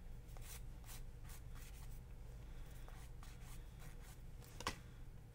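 A nail file (emery board) rubbing along the edge of a cut-out acrylic paint skin to smooth it: a run of quick, light scraping strokes. A sharper click comes once, about four and a half seconds in.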